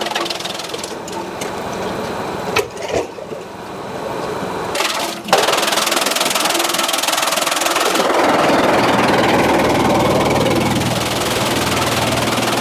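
Sawmill machinery running steadily, with a few sharp knocks, then a sudden louder rushing noise about five seconds in that eases off a few seconds later.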